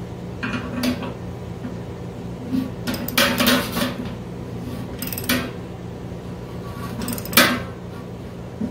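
Metal tools clanking and scraping against a brew kettle's heating-element fitting as the element is tightened down with a socket and a wrench. There are several separate clanks, with a dense run of them a little past the middle and the loudest one near the end.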